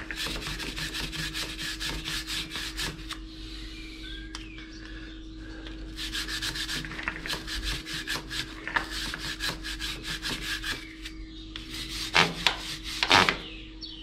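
A chain-cleaning brush scrubbing back and forth along a motorcycle drive chain wet with chain cleaner, in rapid, even strokes. The scrubbing slackens about three seconds in and picks up again around six seconds, with a couple of louder scrapes near the end.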